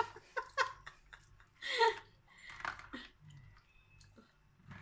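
Soft wet squishing and small clicks of a spoon as marinade is spooned and rubbed onto a split milkfish in a plastic tray, with a couple of brief voice sounds about two and three seconds in.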